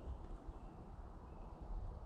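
Quiet outdoor background: a steady low rumble, with a faint high bird note about one and a half seconds in.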